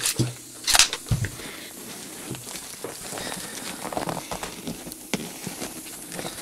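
Vinyl motorcycle seat cover and plastic sheeting being handled and pulled over the seat foam by hand, crinkling and rustling with small clicks. There are two short loud noises in the first second.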